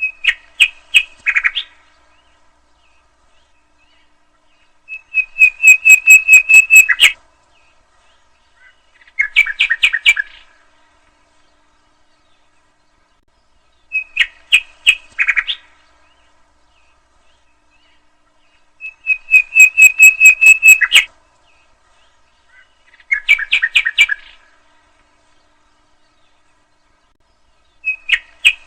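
Common nightingale singing: short phrases of rapidly repeated notes, including a long fast trill of identical pulses, separated by pauses of a few seconds. The same sequence of phrases repeats about every 14 seconds.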